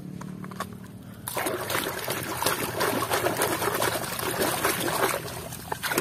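Water splashing and sloshing as a muddy toy truck is swished and rubbed by hand in shallow water. It starts abruptly about a second in.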